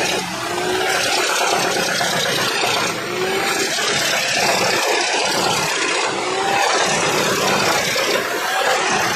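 Truck-mounted wood chipper running, chipping logs fed in by its grapple crane: a loud, steady mechanical noise with a few short rising whines.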